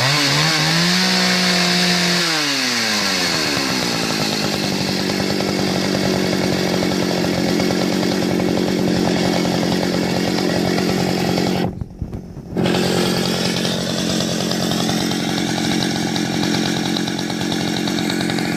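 Partner R14 T two-stroke chainsaw engine revved up briefly, its pitch then falling over a couple of seconds before it runs on at a steady speed. The sound cuts out for under a second about twelve seconds in.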